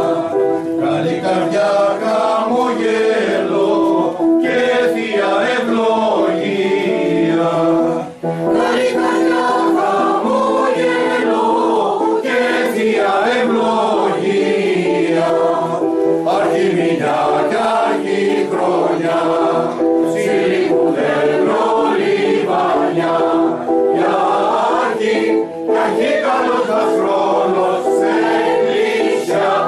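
Mixed choir of men's and women's voices singing a traditional Chios New Year praise song (paínemata), with a brief break between phrases about eight seconds in.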